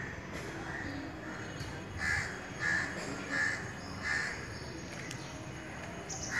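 A bird cawing repeatedly, a run of short calls about two-thirds of a second apart, fainter at first and loudest from about two seconds in.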